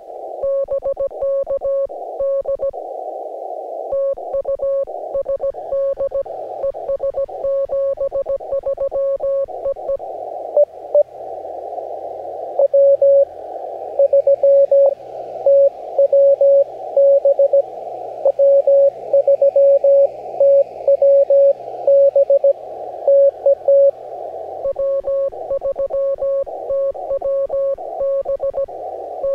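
Morse code (CW) on an amateur radio receiver: a single tone keyed on and off in dots and dashes over a band of receiver hiss. A second, fainter CW signal keys at a higher pitch in places, and soft background music runs underneath.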